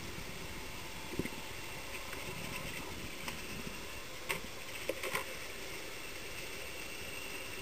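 Steady muffled underwater noise in a swimming pool, with a faint thin whine and a few short clicks and knocks, one about a second in and a cluster between four and five and a half seconds in.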